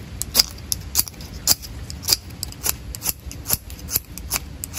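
Magnesium fire-starter rod being scraped in quick repeated strokes, about three or four short scrapes a second, to throw sparks onto a piece of rope used as tinder.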